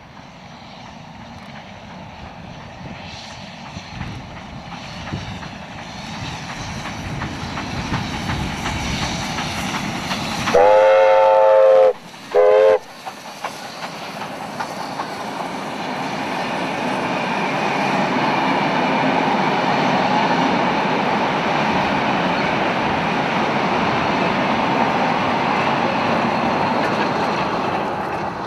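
Steam locomotive K153 and its train approaching and passing, the running sound growing louder, with two whistle blasts, one long and one short, as the engine draws near. The carriages then roll past with a steady rumble and rail clatter that fades near the end.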